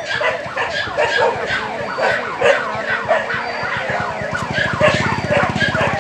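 Fire truck sirens yelping, many quick rising-and-falling sweeps overlapping one another. A low, evenly pulsing rumble joins about four and a half seconds in.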